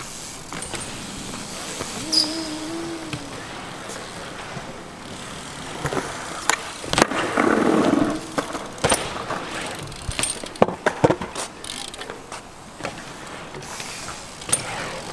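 BMX bike riding a concrete skatepark bowl: tyres rolling and carving on the concrete, with several sharp clacks and knocks in the second half as the bike lands and hits the walls.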